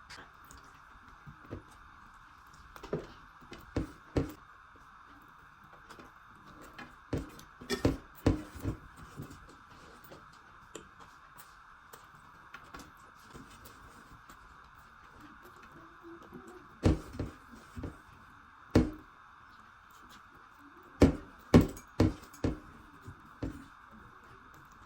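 Close-miked eating sounds: scattered clusters of short mouth clicks and smacks of chewing, with the odd tap on a dish, over a steady background hiss.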